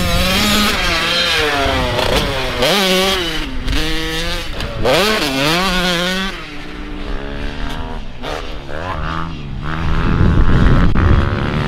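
Mini motocross bike engine revving up and down as it is ridden round a dirt track, the pitch climbing repeatedly and dropping back at each shift or easing of the throttle. It fades somewhat in the middle and comes back louder near the end. It is the bike its rider says keeps spluttering badly, cause not yet known.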